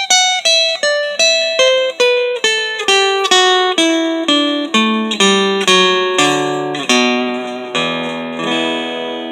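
Seagull acoustic guitar, set up with very low action and fitted with fresh coated 12–53 strings, played as single plucked notes, about three a second, in a run that steps down in pitch. Near the end a chord is struck and left ringing.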